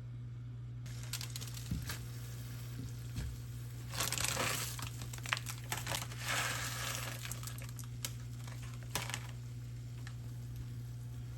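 Rustling and crinkling handling noises, louder in two stretches about four and six seconds in, with a few sharp clicks, over a steady low hum.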